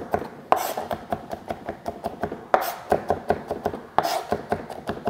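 Chef's knife mincing garlic on a plastic cutting board, rocked on its tip so the blade taps the board in a quick, even rhythm of about five chops a second. Three louder, longer strokes come about half a second, two and a half and four seconds in.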